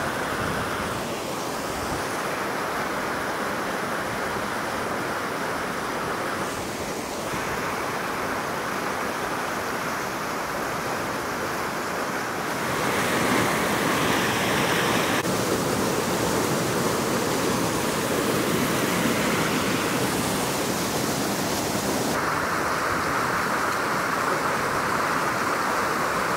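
Creek water rushing over boulders in a steady whitewater roar, louder through the second half, where the water pours over a small cascade; the sound changes character abruptly several times.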